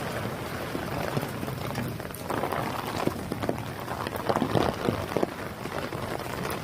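Heavy rain falling, a steady hiss with scattered louder drips and splashes from about two seconds in.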